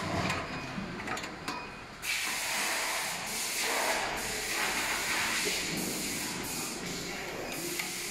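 A few light metallic clicks, then a steady hiss of escaping compressed air from the machine's pneumatic line that starts suddenly about two seconds in and carries on.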